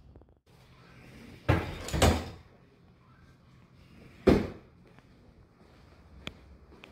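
A door being handled and shut: two heavy thuds about a second and a half in and a louder one about four seconds in, then a couple of light clicks near the end.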